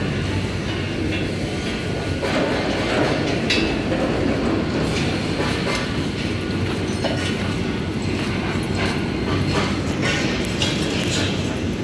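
Steady machinery din of a steel fabrication shop, with scattered sharp metal clicks and knocks.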